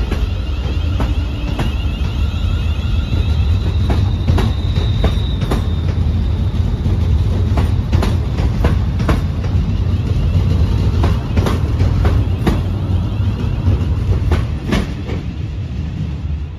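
Class 350 Desiro electric multiple unit running past the platform: a low rumble of wheels on rail with irregular clicks over rail joints and a faint high whine in the first few seconds. The sound eases off near the end as the last coach goes by.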